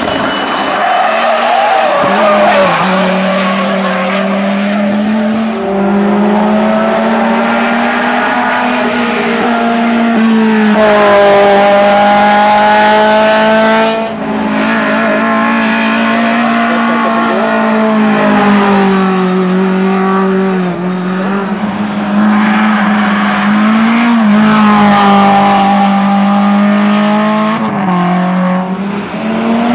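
Hill-climb race car engine held at high revs, its pitch dropping and climbing back in steps every few seconds as it shifts gear, with tyre squeal over it.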